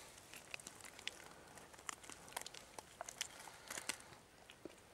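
Faint crinkling and scattered small clicks and ticks of hands gutting birds, pulling out the hearts and the rest of the innards.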